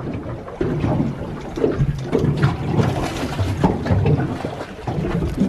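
Sea water splashing and slapping against the hull of a small boat, in uneven swells.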